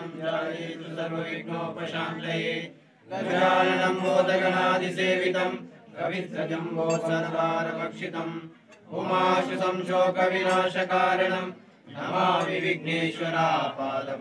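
Sanskrit mantra chanting in long, held phrases of about three seconds each, with short breaks for breath between them.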